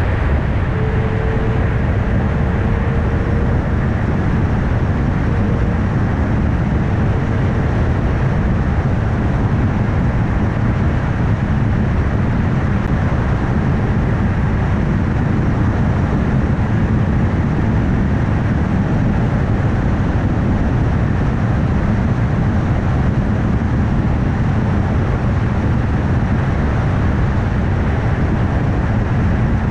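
Steady road rumble of a car driving at speed: tyre and road noise with engine hum, heaviest in the low end. A faint steady tone fades away in the first several seconds.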